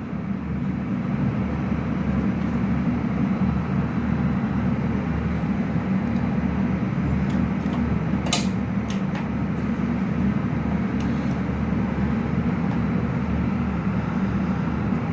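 Steady low machine hum, with a few light clicks and a sharper click about eight seconds in as the desktop's RAM modules are handled.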